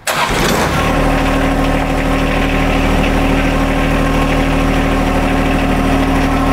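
John Deere 1025R compact tractor's three-cylinder diesel engine starting up abruptly, then running at a steady idle.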